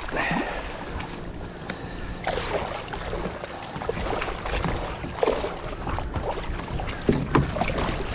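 Water splashing as a large jack crevalle thrashes at the surface, in uneven bursts.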